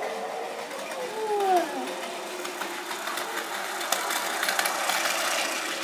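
A battery-powered toy train running on plastic track: a small electric motor whirring, with many small clicks, getting going after about two and a half seconds. Before it, a few short gliding tones rise and fall.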